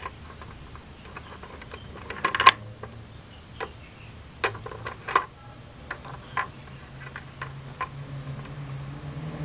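African grey parrot's beak tapping and gnawing on a plastic bucket handle and its metal wire: irregular sharp clicks, the loudest a quick cluster about two seconds in.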